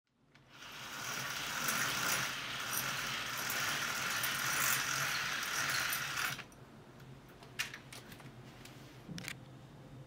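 Beaded chain of a roller blind being pulled, rattling fast through the blind's clutch; it fades in and stops abruptly a little past halfway. A couple of light clicks follow.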